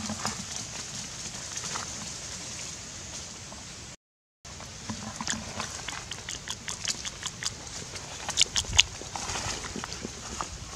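Footsteps crunching and rustling through dry leaf litter: irregular crackles, busiest near the end, over a steady high hiss. The sound cuts out for half a second about four seconds in.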